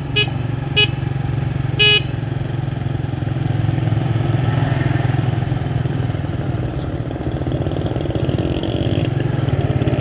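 A vehicle engine running steadily while driving, with three short horn beeps in the first two seconds.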